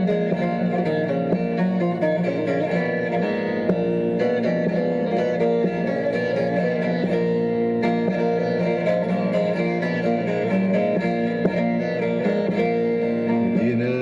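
Background music: an instrumental break in a Turkish song, with plucked string instruments carrying the melody and no singing.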